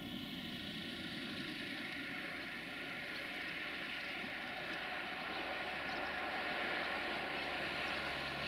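Steady whirr of a quadcopter drone's propellers with the low rumble of a distant diesel freight train beneath, growing slightly louder about two-thirds of the way through.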